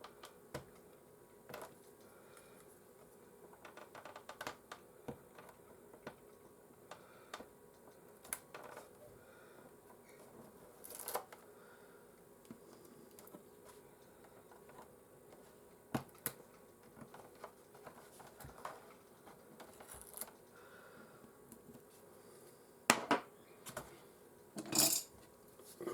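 Scattered small clicks and taps of hand tools and fingers on a PlayStation 4's plastic casing as the warranty stickers and T8 security screws come off the back, with a few sharper clicks near the end.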